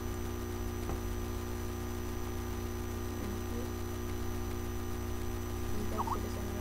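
Steady electrical mains hum: several unchanging tones over a constant low drone, with faint hiss. A brief faint sound comes about six seconds in.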